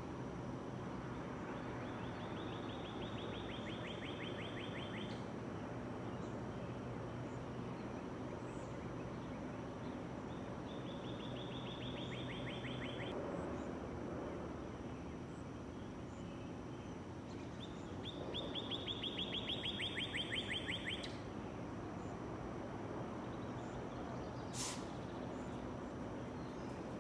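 A bird sings a rapid, even trill of repeated high notes three times, each lasting two to three seconds; the third is the loudest. Underneath is a steady background hum, and a single sharp click comes near the end.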